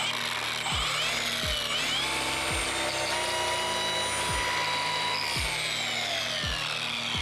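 Milwaukee M18 cordless random-orbital polisher, its gearbox freshly regreased, speeding up, running steadily with a high whine, then winding down near the end. Background music with a steady thumping beat plays underneath.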